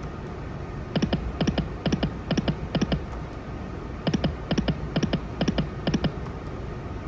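Dragon Train video slot machine's reels spinning and landing, each reel stop giving a short click, in quick runs that repeat several times on losing spins.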